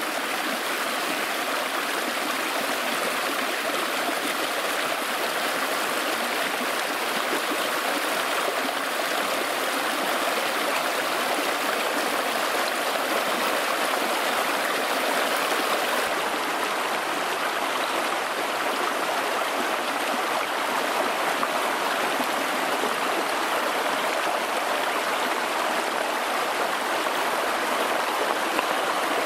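Shallow rocky stream rushing and splashing steadily as it pours through a low wall of stacked stones.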